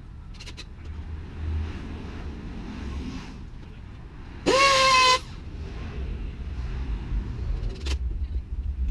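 One short pitched toot about halfway through: it rises quickly, then holds a steady tone for under a second. A low rumble runs underneath.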